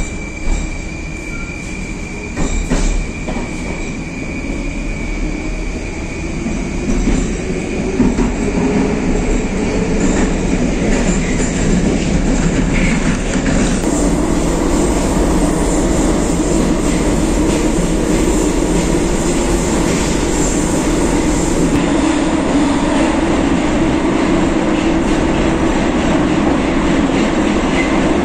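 Moscow Metro 81-760 subway car accelerating, its traction drive giving a rising whine over the first several seconds, with a few knocks early on. The car then runs at a steady, louder speed through the tunnel with dense wheel and running noise.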